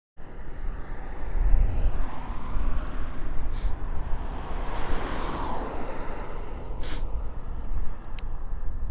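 A car passing on the road, its noise swelling to a peak about five seconds in and then fading, over a steady rumble of wind on the microphone. Two short clicks come about three and a half and seven seconds in.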